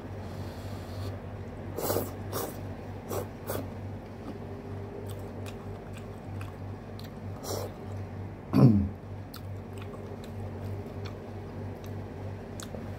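A man eating noodles close to the microphone: chewing, with a few short wet mouth noises. About two-thirds of the way in there is one louder, brief sound that falls in pitch. A steady low hum runs underneath.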